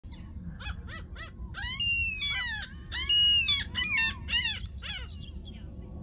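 Gulls calling: a run of short yelping calls, with two longer, louder drawn-out calls in the middle, over a low steady rumble.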